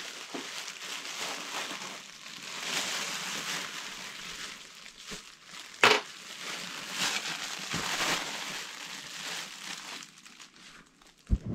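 Layered fabric, felt and faux leather, rustling and crinkling as it is lifted, turned over and smoothed by hand, with one sharp click about halfway through.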